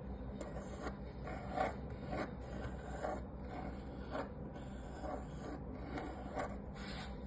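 The pencil lead of a drawing compass scratching across a wooden disc as it swings round drawing circles, in a run of short strokes, about one or two a second.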